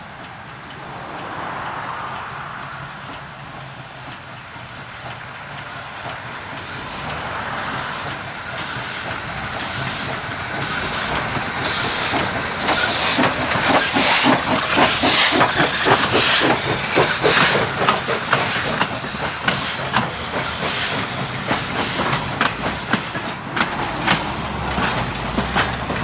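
Pennsylvania Railroad 643, a 1901 0-6-0 steam switcher, working slowly past: rhythmic exhaust chuffs and steam hissing from the cylinder cocks, growing louder as it nears and loudest about halfway through. This is followed by the clicking of its passenger cars' wheels on the rails.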